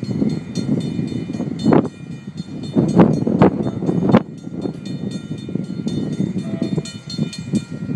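Railroad grade-crossing bells ringing in repeated strikes as the crossing gates lower, over a low rumble, with a few louder swells between about two and four seconds in.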